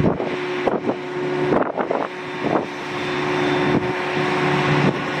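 Claas self-propelled forage harvester running with a steady drone, and wind gusting on the microphone several times.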